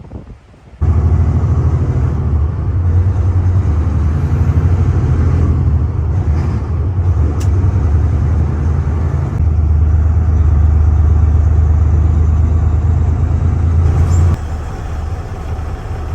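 Detroit Diesel 14-litre inline-six diesel in a semi truck running with a loud, deep, steady rumble. It cuts in suddenly about a second in and drops noticeably in level near the end.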